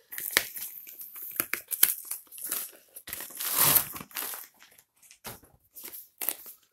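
Mailing bag rustling and crinkling as a cardboard retail box is pulled out of it and handled, with the loudest burst of rustling about three and a half seconds in and only scattered rustles and light knocks of the box after that.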